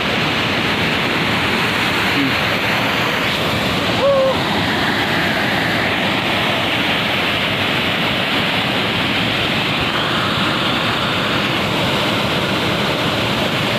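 Waterfall rushing, a steady dense roar of falling water. About four seconds in, a brief short call rises above it.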